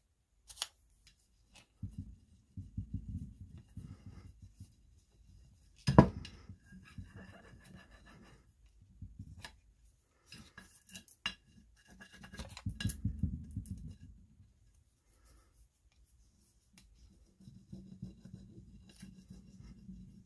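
Plastic rubbing stick burnishing a decor transfer sheet onto a glass jar: several bouts of scratchy rubbing against the film and glass, with light clicks and one sharp knock about six seconds in.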